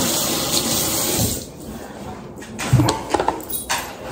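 Kitchen tap running as an egg is rinsed under it, shut off about a second and a half in, followed by a few sharp knocks and clicks.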